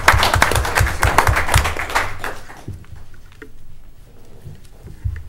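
Audience applause, a dense patter of many hands clapping that dies away about two and a half seconds in. A few soft knocks follow in the quiet.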